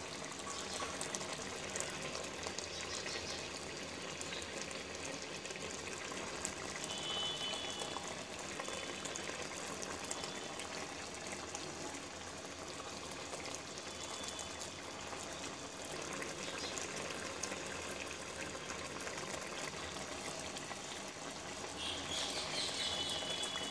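Poa fish curry simmering in a pot: a steady bubbling of the gravy, with many small pops.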